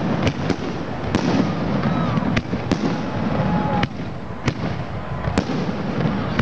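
Many fireworks going off at once: a continuous rumble of distant bursts, with about nine sharper, nearer bangs at irregular intervals.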